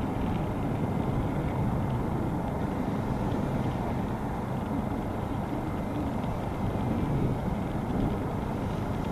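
Steady low rumble of wind on the microphone, over the faint, steady high whine of a small electric RC plane motor while the model taxis.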